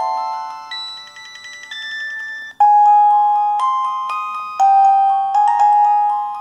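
Preloaded ringtone melody playing on an LG UX210 cell phone: bright, bell-like chiming notes in several voices at once. About two and a half seconds in, the sound drops out briefly and a louder run of sharply struck notes begins.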